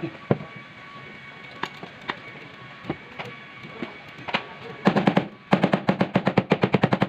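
A few scattered sharp knocks, then a loud rapid rattle of evenly spaced strikes, about ten a second, starting about five seconds in with one short break.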